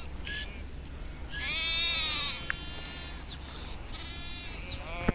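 Sheep bleating in a grazing flock: several wavering calls, the longest about a second and a half in, others near the start and end. Two short high chirps and a sharp click near the end sound over a steady low rumble.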